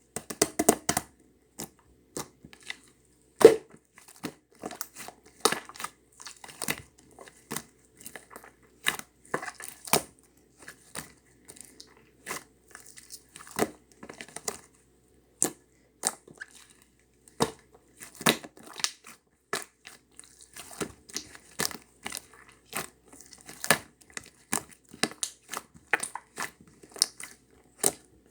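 Irregular crinkling and crackling of something being handled, a run of sharp, uneven clicks with short gaps between them.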